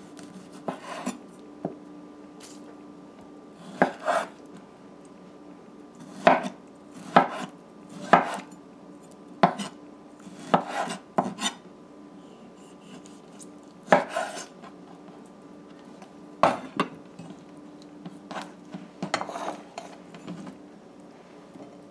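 Chef's knife slicing a tomato on a wooden cutting board: about fifteen to twenty sharp knocks at irregular intervals as the blade cuts through and strikes the board. A faint steady hum runs underneath.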